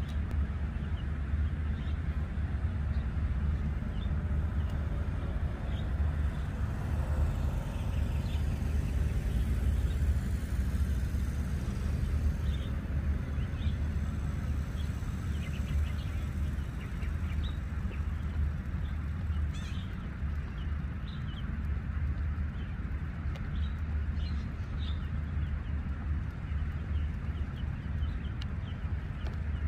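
Steady low rumble of wind on the microphone at the open seashore, with scattered short, high chirps of birds.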